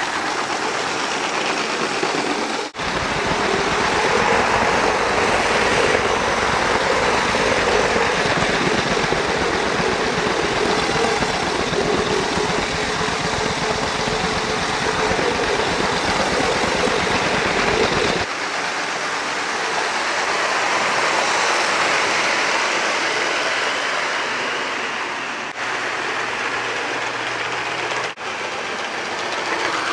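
LEGO 9V electric toy trains running on plastic track close by: a steady electric motor whine with the wheels rattling over the rails. The sound changes abruptly a few times, at about 3 s, 18 s and near the end.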